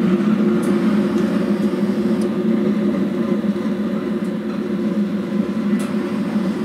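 Homemade waste oil burner running with waste oil being pumped in: the flame in the burn chamber roars steadily under a constant low hum, with air blown in by a central heating boiler fan. A few faint ticks sound over it.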